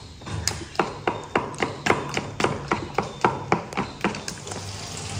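Quick, even taps of a kitchen utensil on a hard surface, about four a second, stopping a little after four seconds, typical of food preparation at a counter.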